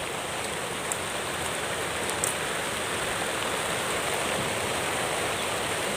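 Drizzle falling on grass and leaves, a steady hiss with a couple of faint ticks.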